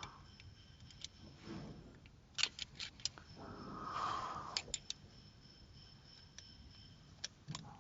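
Scattered light metallic clicks of valve tappets being moved and rocked by hand in their bores in a VAZ cylinder head, the bores worn enough to let the tappets tilt, which causes tappet knock. A short rustling noise comes in the middle.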